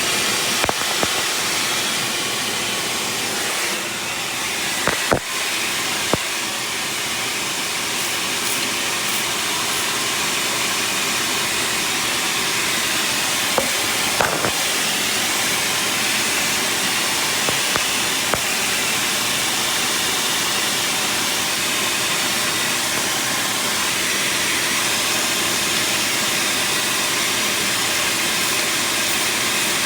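Engine running with a steady hiss from a leaking exhaust, broken by a few sharp clicks.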